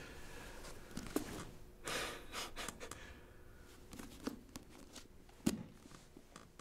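Faint breathy exhales, like a soft sigh, with a few small clicks and knocks in a quiet small room.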